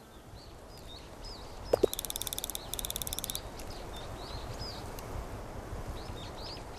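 Outdoor ambience with small birds chirping, and a fast chattering bird call in two bursts about two seconds in, just after a short sharp sound; a low rumble lies underneath.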